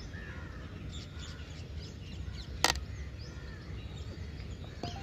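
Faint bird calls over outdoor ambience, with one sharp crack about two and a half seconds in: a cricket bat striking the ball.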